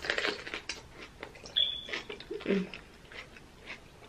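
Close-up crunching and wet chewing as a raw red pepper coated in sauce is bitten into and chewed. A short high squeak comes about a second and a half in.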